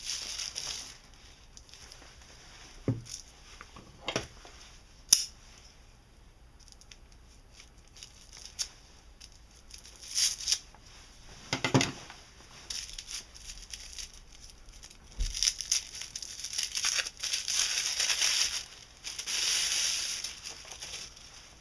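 Packaging being handled as the parang is unwrapped: crinkling and rustling, with scattered sharp clicks and knocks, including a loud one about five seconds in. The rustling gets busier and louder in the last third.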